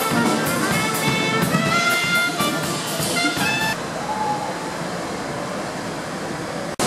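Brass-led, jazz-style music with trumpets and trombones for the first half. A little before the middle it gives way to a steadier, noisier background with only a few faint tones, and the sound changes abruptly just before the end.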